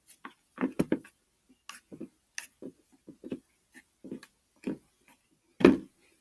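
Homemade glue slime squelching in short, irregular squishes as hands knead and stir it in a plastic bowl, with one louder, deeper thump about five and a half seconds in.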